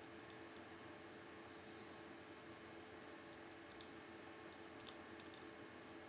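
Sparse, faint metallic clicks of a lock pick raking and setting the pin tumblers of a Federal Lock 8102 padlock held under a tension wrench, the sharpest about four seconds in and a few close together around five seconds, over a steady faint hum.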